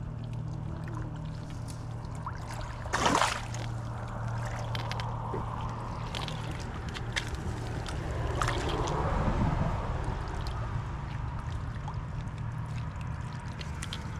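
Water sloshing and trickling over a steady low motor-like hum, with a short loud splash-like burst about three seconds in and a swell of water noise around nine seconds.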